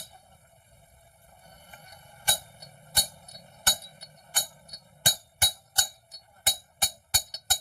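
Hammer blows on metal, sharp ringing strikes that start about two seconds in, roughly every 0.7 s, then come about twice as fast near the end.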